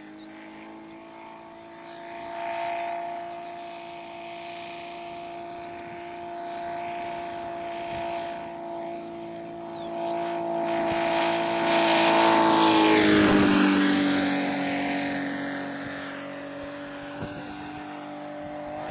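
Saito 75cc three-cylinder four-stroke radial engine of a large radio-controlled Harvard model running steadily in flight. The plane comes close about two-thirds of the way through, growing much louder, and its pitch drops as it passes and moves away.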